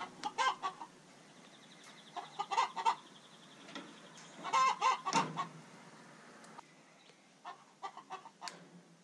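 Domestic hens clucking in short bursts of calls, four clusters of clucks a couple of seconds apart.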